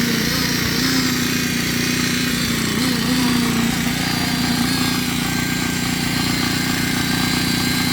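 An engine running steadily with a strong even hum, its pitch sagging briefly about three seconds in.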